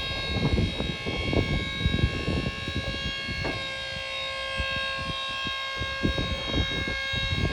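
The tipper's electro-hydraulic pump on a 2023 Ford Transit runs with a steady whine of several fixed tones as it raises the alloy tipper body. Its tone shifts slightly about three and a half seconds in.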